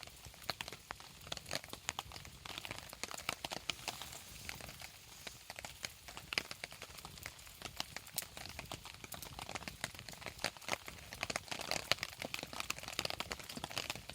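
Rain pattering mixed with a campfire crackling: a dense, irregular run of small ticks and snaps, steady throughout.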